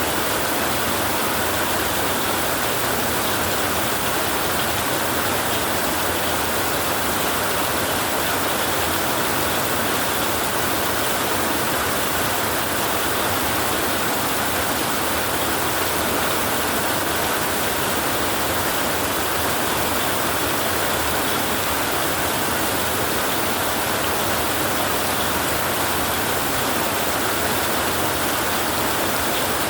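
Heavy rain falling steadily on a tin roof, an even, unbroken hiss with no let-up.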